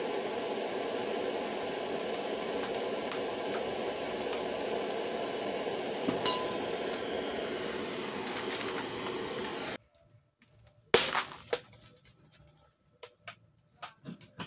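Butane gas torch burning with a steady hiss against the front glass of a Sony Trinitron CRT monitor; the hiss stops abruptly about ten seconds in. About a second later comes a sharp crack as the heated screen glass fractures, then a scatter of smaller ticks and clicks as the glass goes on cracking.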